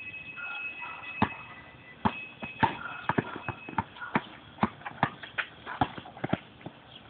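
A basketball bouncing on an outdoor asphalt court as it is dribbled, heard as a quick, uneven run of sharp bounces mixed with scuffing sneaker steps.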